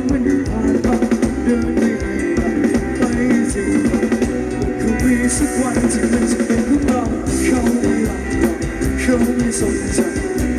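A live band playing Thai ramwong dance music, with a drum kit keeping a steady beat under guitar and other pitched instruments, loud and without a break.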